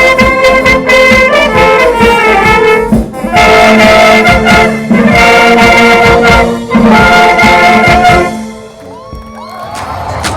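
Military brass band playing a march, with trumpets and trombones over steady drum beats; the music stops about eight seconds in.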